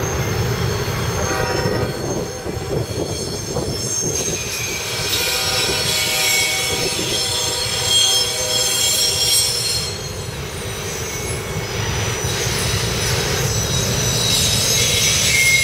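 A CSX freight train of autorack cars rolls past with a steady low rumble of wheels on rail. The wheels squeal in high, ringing whines that come and go, strongest from about five seconds in.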